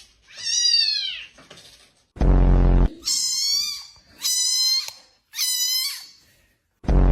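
Cat meowing: one call rising and falling, then three high, evenly held meows in a row. Two short, loud, low buzzing sounds come about two seconds in and near the end, the loudest sounds here.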